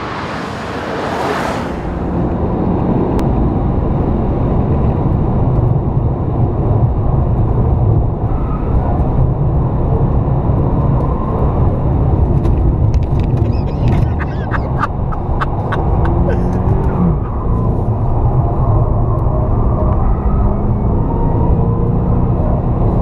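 A V8 performance sedan rushes past in the first two seconds, then the same kind of V8 engine is heard from on board, running hard at racing speed around a circuit. A quick run of sharp ticks sounds about halfway through.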